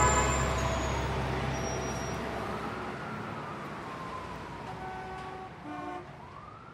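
The fading tail of a recorded rock song: held tones and a slowly gliding whine die away as the volume drops steadily, with a short stacked tone sounding near the end.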